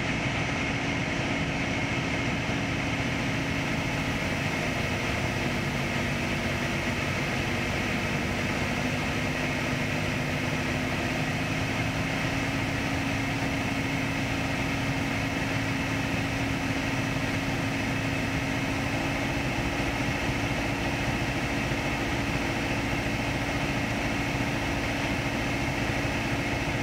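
Cabin noise of a Piper PA-28 Archer in flight: its four-cylinder Lycoming O-360 engine and propeller run with a steady drone under the rush of air over the airframe, during a descent on approach.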